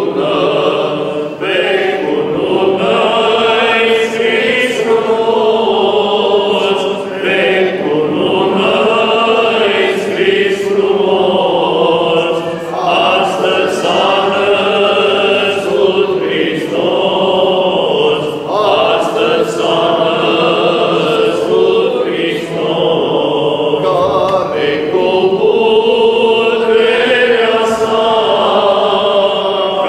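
Several men's voices, Orthodox priests, singing a liturgical chant together, one voice amplified through a handheld microphone, in phrases with short breaks between them.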